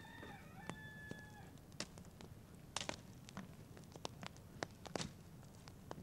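A rooster crows once, about a second and a half long, its pitch dropping at the end. Irregular sharp clicks and cracks sound throughout as lumps of bog ore are piled onto the burning wood fire.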